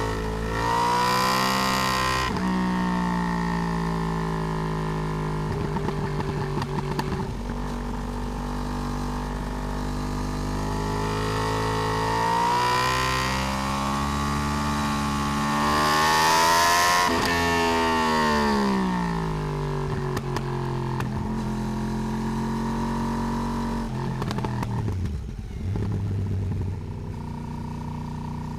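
Yamaha R1 (RN22) crossplane inline-four under way, heard from a swingarm-mounted camera, its pitch rising and falling as the rider opens and closes the throttle through the gears. The revs climb for several seconds around the middle and then fall away, and dip sharply and pick up again near the end.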